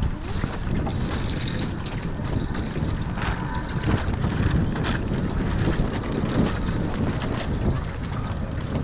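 Steady wind buffeting the microphone, with water washing along the hull of a small wooden sailing dinghy under way.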